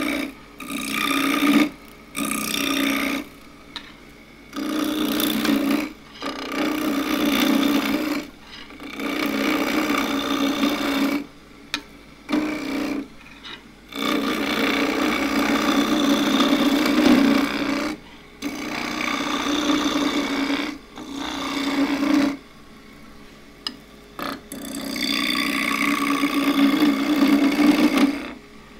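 Skew chisel cutting a spinning juniper spindle on a wood lathe, in a series of about ten cuts of one to four seconds each with short pauses between, the steady drone of the spinning work under each cut.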